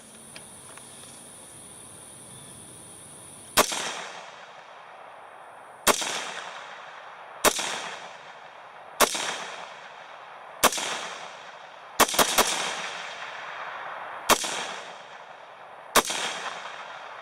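Ten semi-automatic shots from an AR-15-pattern rifle chambered in 7.62x39, fired at an uneven pace of roughly one every one to two seconds, with three in quick succession about twelve seconds in. Each report trails off in a short echo.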